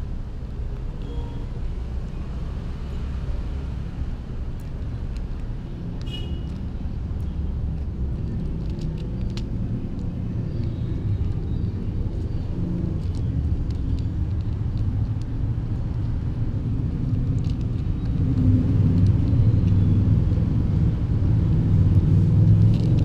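A steady low rumble that grows louder over the last five seconds, with a few faint high chirps about six seconds in.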